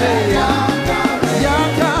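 Upbeat praise music with a singer over a pulsing bass line.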